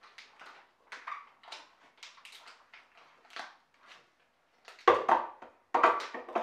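Plastic Cuisinart food processor bowl being scraped out with a spatula in a run of short strokes, then two louder clunks about five and six seconds in as the bowl is set back onto the base.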